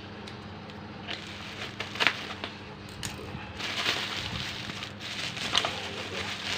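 Plastic packaging crinkling and rustling with a few sharp clicks as a set of motorcycle turn-signal lamps is unwrapped, busier in the second half.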